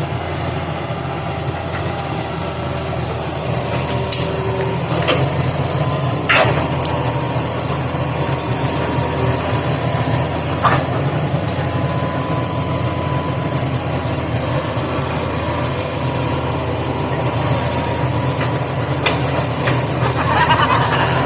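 An engine running steadily at a constant pace, with a few sharp clicks or knocks over it.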